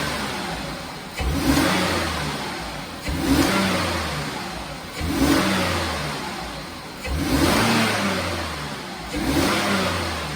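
Mazda MPV's 3.0-litre V6 having its throttle snapped repeatedly, about every two seconds, each quick rev falling back toward idle. It revs cleanly with no misfire, confirming a repaired misfire on cylinders 5 and 6.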